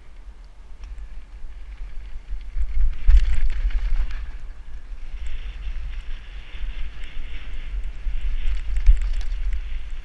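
Wind buffeting the microphone of a helmet camera on a downhill mountain bike, with the tyres rolling over gravel and dirt and small clicks and rattles from the bike over bumps. The rumble swells about three seconds in and again near the end.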